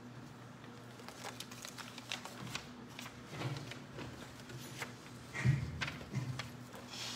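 Papers rustling with small clicks and knocks as things are handled on a wooden pulpit, with a few dull thumps near the microphone, the loudest about five and a half seconds in, over a faint steady hum.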